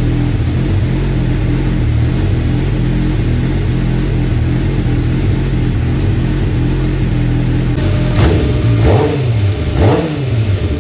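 A freshly rebuilt 2006 Kawasaki Ninja 600's inline-four engine idling steadily. From about eight seconds in it is blipped several times, the revs rising and falling quickly.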